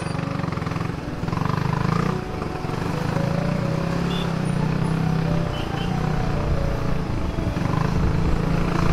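Yamaha R15 V3's 155 cc single-cylinder engine running steadily under way in first gear, with no misfiring or cutting out.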